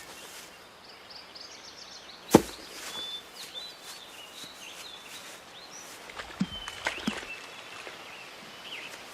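Outdoor ambience with birds chirping, a single sharp knock about two seconds in, and two lighter knocks around seven seconds.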